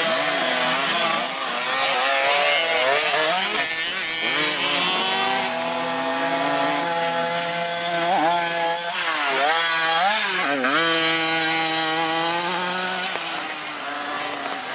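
Several 50cc mini motocross bike engines buzzing at high revs, pitch rising and falling over and over as the riders open and close the throttle through the track's corners, with more than one bike heard at once around the middle.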